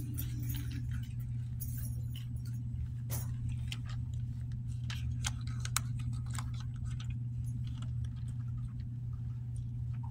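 Scattered light clicks and rustles of Bible pages being turned as the passage is looked up, over a steady low hum.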